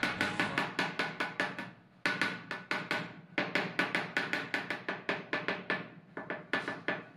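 A mason's trowel's wooden handle knocking rapidly on a ceramic wall tile, about five taps a second, each with a short ringing note, to bed the tile into its mortar. The tapping breaks off briefly about two seconds in, then carries on.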